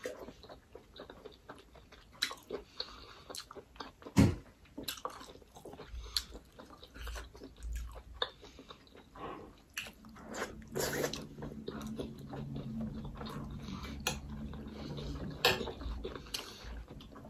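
Close-miked mukbang eating of juicy momo dumplings: wet chewing, biting and sucking at the juice, with many small mouth clicks and smacks. A sharp knock comes about four seconds in, and a low steady hum runs through much of the second half.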